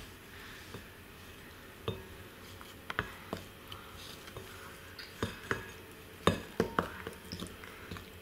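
Wooden spoon knocking against a glass mixing bowl while dry almond meal is stirred: irregular light clinks and taps, with a few coming close together about six seconds in.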